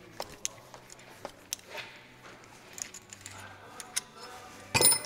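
Scattered small metal clicks and clinks as a hand tool and its fittings are handled, with a louder clatter near the end.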